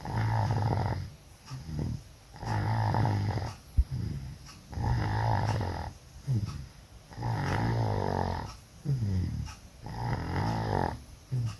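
A sleeping person snoring very loudly, put down to having flu and a cough. About five long snores come roughly every two and a half seconds, each lasting about a second, with a shorter, softer breath sound between them.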